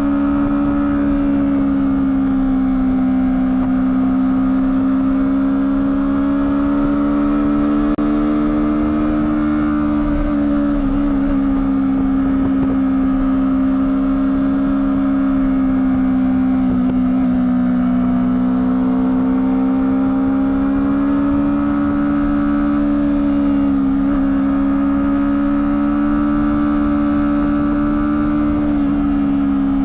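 Honda CBR250RR running on its stock exhaust at steady revs, one continuous engine note whose pitch drifts gently up and down.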